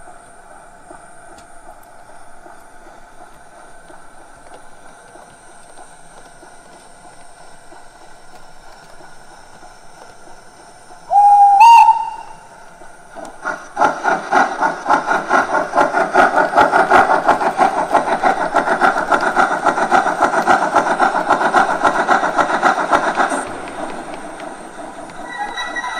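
Steam-locomotive sounds from the ESU LokSound 5 XL sound decoder in a Gauge 1 model of a DR class 52, played through the model's loudspeaker. A short steam whistle sounds about eleven seconds in, rising slightly in pitch. Loud, rapid steam-exhaust chuffing follows for about ten seconds, then drops back near the end.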